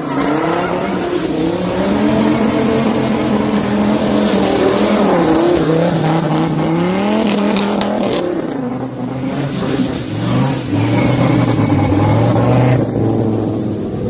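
Muscle car engine revving hard during a burnout, its pitch rising and falling as the rear tires spin and squeal. About eight seconds in, the revs drop to a lower, steadier note.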